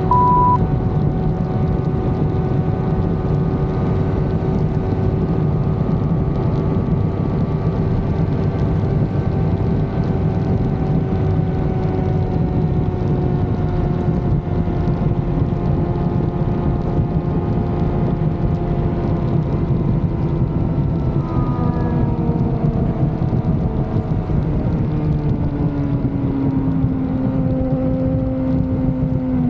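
Motorcycle engine running at a steady highway cruise, with wind rushing over the microphone. The engine note sinks slowly over the last few seconds as the bike eases off.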